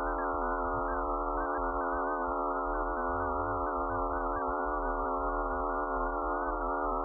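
A purported 'sound of Phobos', said to come from its Limtoc crater: an electronic drone of many steady sine-like tones layered together, the upper ones wavering slightly, over a low hum.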